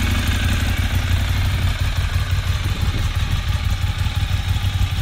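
2012 Ducati 848 Evo's 849 cc Testastretta L-twin idling steadily, with a low, even pulsing beat.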